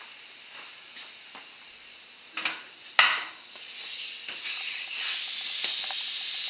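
Compressed air hissing from a shop air hose as a motorcycle tire is inflated to seat its bead. There are a few clicks of handling and one loud knock about three seconds in, and the hiss grows louder and steady about five seconds in as the chuck goes on the valve.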